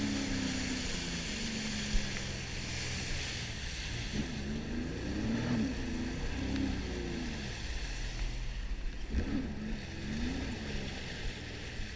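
Jet ski engine running, its pitch rising and falling repeatedly as the throttle is worked, over steady water and wind noise.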